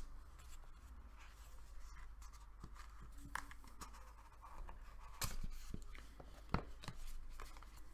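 Cardboard packaging being handled: a box's drawer-like inner tray slid and lifted out, with faint scraping and a few light taps of card against card.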